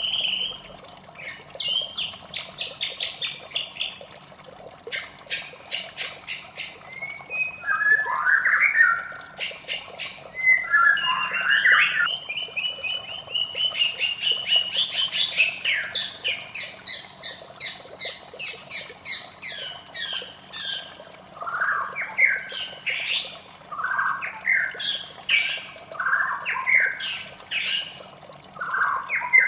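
White-rumped shama singing a varied, fast song. It mixes rapid strings of short repeated notes with quick whistled and slurred phrases, broken by brief pauses.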